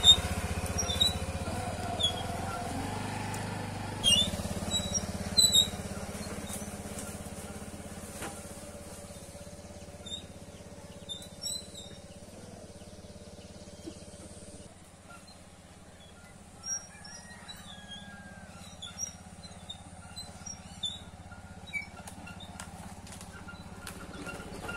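TVS Jupiter scooter's small single-cylinder engine running as it pulls away and heads down a rough dirt track, with sharp clicks and knocks in the first few seconds; the engine sound fades with distance, leaving birds chirping in the second half.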